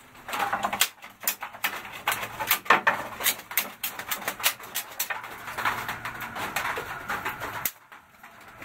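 Wooden boards and ripped offcut strips being handled on a table saw and workbench: scattered knocks, clacks and scrapes of wood on wood and on the saw table.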